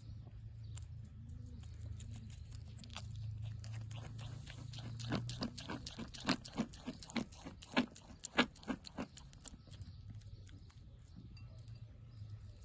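Young goat chewing pieces of apple: a run of crisp crunches, about three or four a second, lasting a few seconds in the middle.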